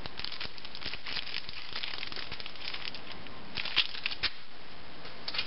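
Plastic packaging of a bagged charm set crinkling and rustling as it is handled, in scattered short crackles with a louder cluster about three and a half seconds in.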